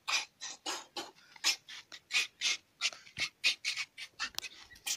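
Short, sharp hissing exhalations from a martial artist performing kung fu strikes and kicks, in quick succession at about three a second.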